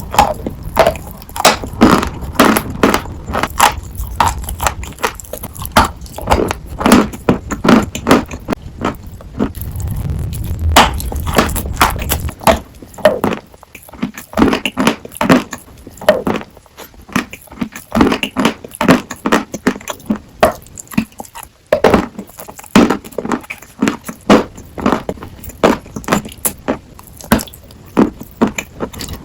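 Sawn chalk being bitten and chewed close to the microphone: a steady run of crisp crunches, two or three a second, with brief pauses.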